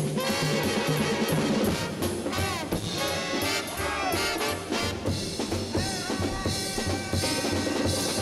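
Upbeat jazzy outro music with brass and drums, horn lines sliding and falling in pitch over a steady beat.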